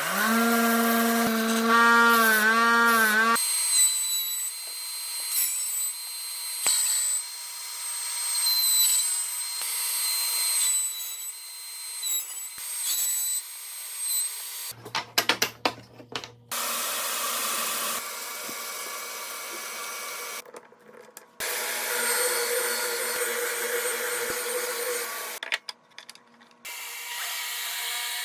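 Power tools working wood in several short cut-together clips: a motor whine that wavers in pitch for the first few seconds, then steady high-pitched hissing tool noise, with abrupt changes between clips.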